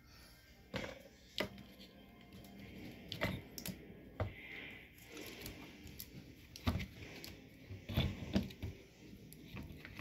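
Scattered light clicks and knocks of a small electric fan motor's stator and metal housing being handled as the winding is worked loose by hand, with a few louder knocks in the second half.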